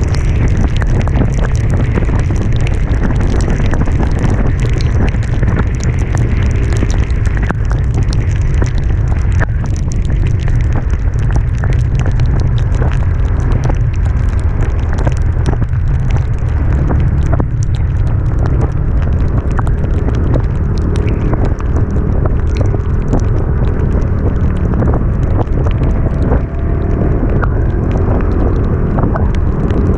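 Heavy wind buffeting on the microphone of a moving vehicle on an uphill ride, with a vehicle engine running faintly underneath, clearer in the second half, and scattered sharp ticks.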